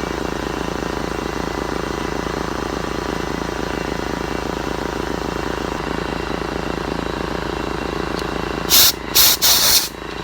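A machine runs steadily with a fast, even pulse. Near the end, three short, loud bursts of air hiss cut through it.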